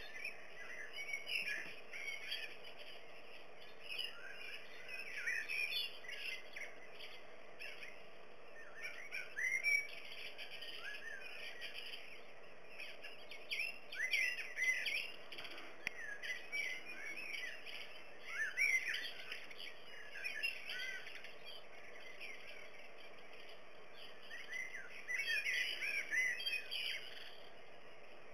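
Small songbirds chirping and twittering, many short overlapping calls in clusters with brief lulls between them.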